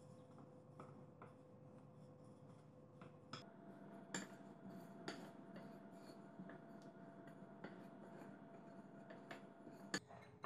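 Faint rubbing of a wooden rolling pin rolling dough out on a countertop, with light knocks and taps of the pin and hands on the counter. Near the end a sharp click as a metal spoon hits a glass bowl.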